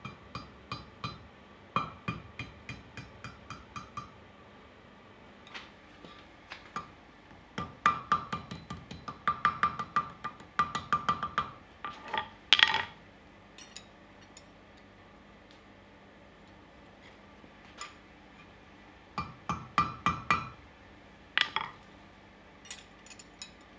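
Hand hammer striking hot spring steel on an anvil in quick runs of blows, each strike followed by the anvil's clear ring. The loudest blows come a little past the middle, after a lull of a few seconds, and there is a longer quiet gap before a final run of strikes.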